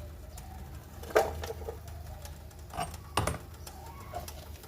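Kitchen utensils and cookware knocking and clinking three times, twice close together near the end, over a low steady hum.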